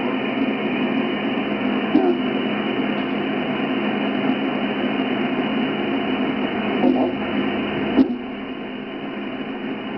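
Sideband radio receiver audio from a transceiver tuned to 27.620 MHz upper sideband: steady hiss and static with a weak signal faintly under the noise. Sharp crackles of static come three times, and the noise drops a little after the last one.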